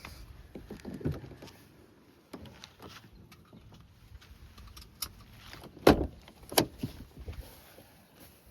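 Handling noise inside a truck cab: rustling and scattered knocks as things are moved about. The loudest is a pair of sharp knocks close together about six seconds in.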